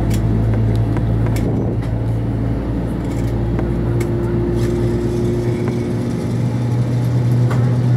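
Airbus A321 cabin noise on the ground: a steady droning hum of the idling engines and cabin air system, with a few faint clicks.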